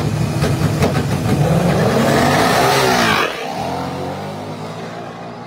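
A race-prepped Blazer and a Mustang launching side by side on a drag strip at full throttle, their engines climbing in pitch. About three seconds in the loudness drops off sharply, and the engines fade as the cars pull away down the track.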